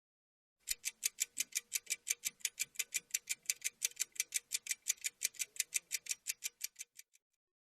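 Rapid, evenly spaced clock-like ticking, about six ticks a second, starting just under a second in and stopping cleanly about seven seconds in, with a faint steady hum beneath.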